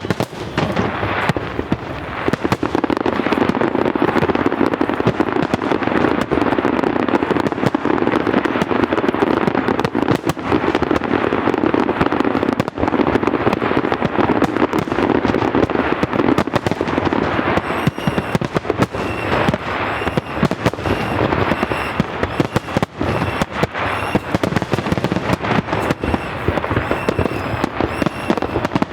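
Aerial fireworks in a dense barrage: rapid bangs and crackling that run almost without a break. From about two-thirds of the way through, short high tones repeat above it.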